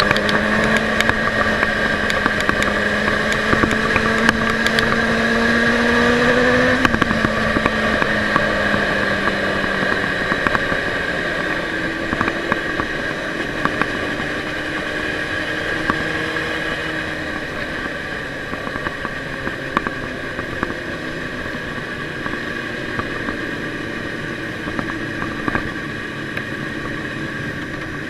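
On-board sound of a Ducati motorcycle riding at speed, with wind and road rush: the engine note climbs steadily for about seven seconds, drops suddenly, then runs lower and less evenly, the overall level easing off in the second half.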